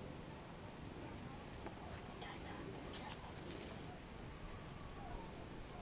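A steady, high-pitched chorus of insects trilling without a break, with faint crunches of footsteps on dry leaves around the middle.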